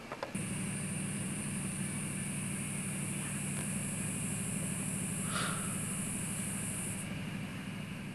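A motor or engine running steadily with a low hum, with a steady high-pitched buzz over it that stops about seven seconds in. There is a short falling whistle about five seconds in.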